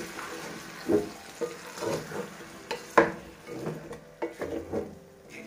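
A wooden spoon stirs chicken pieces frying in a granite-coated pot, with irregular knocks and scrapes against the pot over a steady sizzle. The sharpest knock comes about three seconds in.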